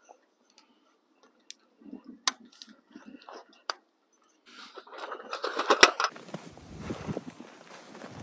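Aluminium rods of a folding camp table clicking and clinking as they are set into the tabletop's holes and clipped in, with a louder rattle of metal about five seconds in. From about six seconds a steady rushing outdoor noise with some low rumble takes over.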